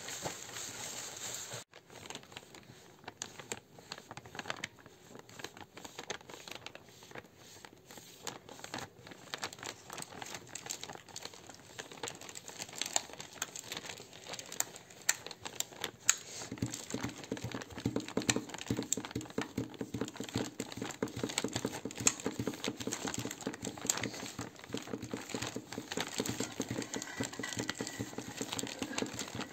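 Dense crinkling and crackling of handled material, one of the children's hand-made imitations of nature sounds. About halfway through, a lower, rapid rustling joins in.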